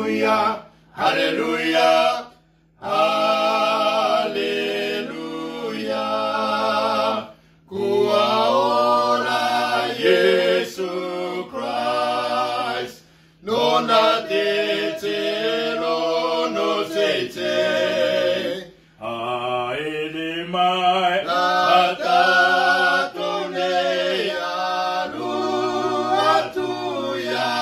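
Three men singing a Cook Islands Māori hymn together a cappella, in long held phrases with short pauses for breath between them.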